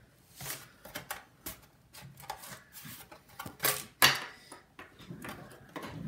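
Plastic clicks, knocks and short scrapes of a Dell Latitude E6430 laptop's bottom case being pressed on and shifted on a wooden desk, with the loudest knocks about four seconds in.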